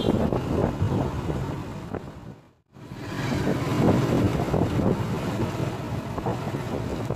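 A moving vehicle's running and road noise with wind on the microphone. It cuts out briefly about two and a half seconds in, then carries on.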